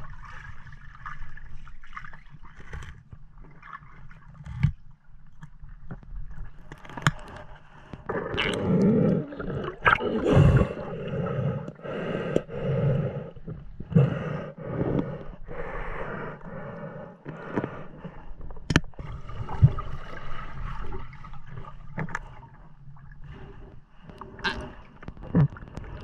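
Water gurgling and sloshing around the microphone, broken by scattered sharp knocks and scrapes, loudest from about 8 to 16 seconds in.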